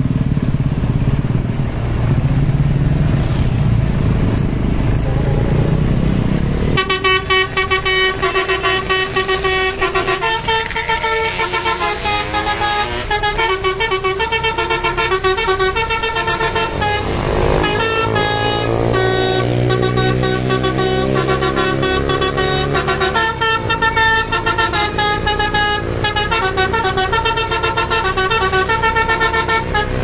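Tour bus's basuri telolet horn playing a fast multi-note melody, starting about seven seconds in after a low engine rumble, with gliding pitches near the middle.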